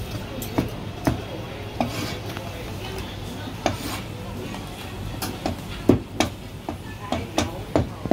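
Chinese cleaver slicing marinated pig offal on a plastic chopping board: a string of sharp, irregular knocks, coming quicker in the second half.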